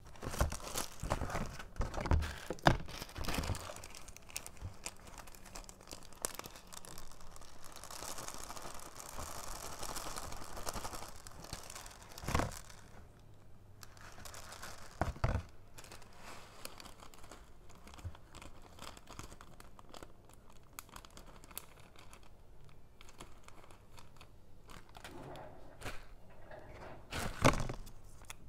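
Plastic bags of foam beads crinkling and rustling as they are handled, with loose foam beads tipped from a zip bag into a clear plastic tub. A few sharp plastic knocks along the way, and a louder burst of handling near the end.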